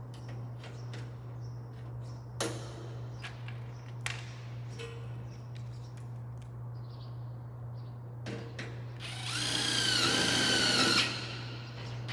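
Screw gun whirring for about two seconds near the end, driving a screw into light-gauge steel stud track, after light clicks and knocks of handling the metal framing. A steady low hum runs underneath.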